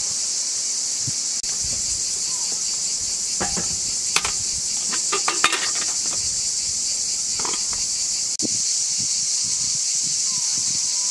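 Steady high-pitched insect chorus. A few sharp metal clinks from a kettle being handled come about four to five and a half seconds in.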